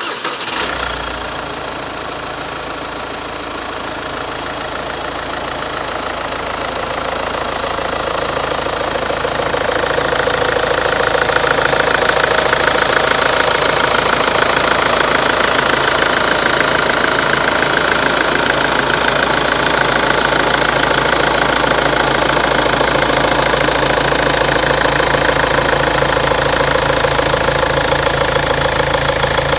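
Kia Sorento's four-cylinder CRDi common-rail turbodiesel idling steadily with the hood open, the sound growing louder over the first ten seconds and then holding level.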